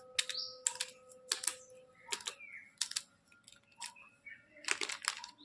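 Irregular sharp clicks and taps, about one or two a second, with light crinkling of plastic candy packaging being handled.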